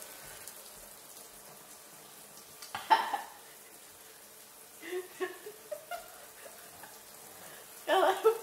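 A woman's short bursts of laughter and breathy vocal sounds after a swallow of strong juice: one sharp burst about three seconds in, a few small ones a couple of seconds later, and a louder one near the end, over a steady faint hiss.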